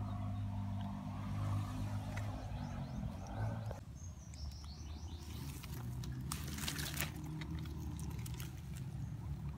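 A motor engine drones steadily with a low hum, dropping in pitch just before it cuts off about four seconds in. Then come a few bird chirps and a stretch of sharp crackling rustles from a plastic sheet being handled.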